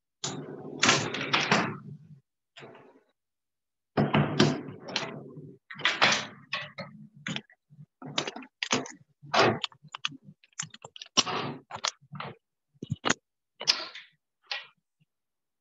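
A run of irregular knocks, clicks and rustles, several longer scuffs early on, then many short, uneven taps.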